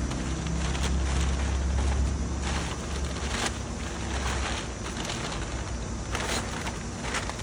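Crumpled kraft packing paper crinkling and rustling in several short bursts as it is pulled out of a cardboard box, over a low vehicle rumble that fades out about three seconds in.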